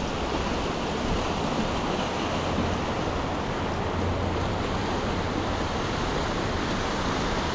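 Steady rushing of a river: an even wash of water noise with no breaks.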